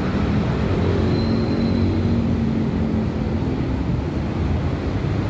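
Busy city street traffic: a steady low rumble of vehicle engines, with a humming tone that fades out a little over halfway through.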